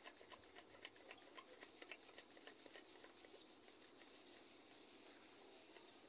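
Foxtail millet seed being shaken in a perforated steel colander over a steel tray: a faint, quick, rhythmic rustle as the fine seed sifts through the holes, leaving husks and bird droppings behind. The rustle evens out into a steady faint hiss in the second half.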